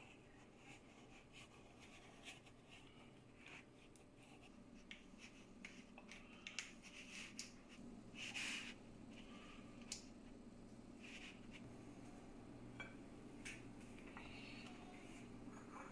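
Faint, irregular scrapes and light clicks of knives working a baked sponge cake: a palette knife run around the inside of a metal springform pan, then a serrated bread knife cutting the cake on a plastic cutting board. A low steady hum lies underneath.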